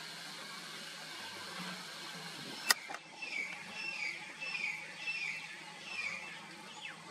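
A steady hiss, then a single sharp click a little under three seconds in. After it comes a parrot's call repeated about five times, each a short call sliding down in pitch.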